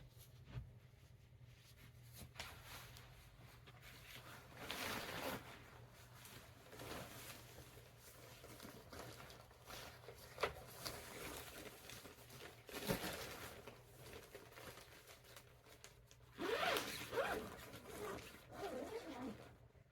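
Zipper on a fabric clothes-dryer bag being pulled in several separate runs with pauses between, the longest and loudest near the end.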